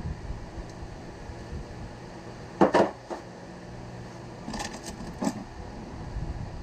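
Small hard objects clattering off-camera: a sharp double clack a little under three seconds in, then a few lighter clicks about a second and a half later, over a low steady hum.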